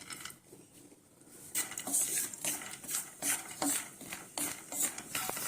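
A spoon stirring peanuts roasting in ghee in a pan, clinking and scraping against the pan in quick irregular strokes that begin about a second and a half in.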